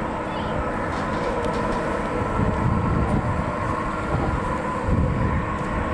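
Steady, loud rumble of passing heavy vehicles, with a few held whining tones over it.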